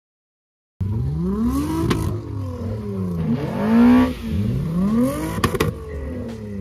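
A VR6 car engine is revved up and down about four times through its exhaust, starting abruptly about a second in. The highest rev comes near the middle, and a few sharp cracks come about two seconds in and twice around five and a half seconds.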